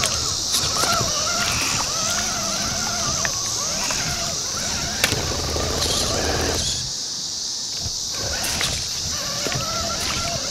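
Axial Wraith RC rock crawler's electric motor and gears whining, the pitch wavering up and down with the throttle as it crawls through shallow water over river rocks, with splashing and sharp clacks of tyres on stones. The whine stops for about a second roughly seven seconds in, then picks up again.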